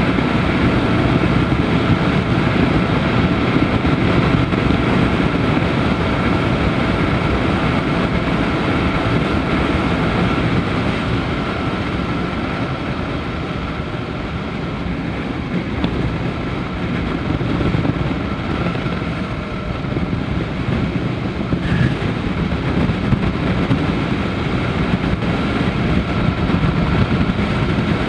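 Daelim Daystar 125cc motorcycle riding at cruising speed: the engine running under steady wind rush over the camera's microphone. The sound eases a little in the middle and builds again toward the end.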